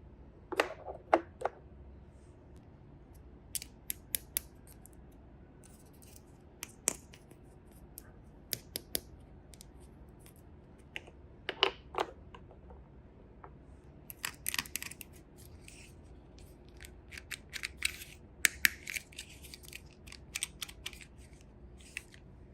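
Scattered light clicks and short scratchy scrapes of small toy parts or packaging being handled close by, sometimes in quick pairs and in a denser flurry in the second half.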